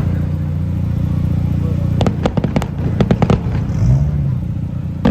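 A quick string of sharp firework cracks about two seconds in, lasting just over a second, over a steady low rumble of idling car engines.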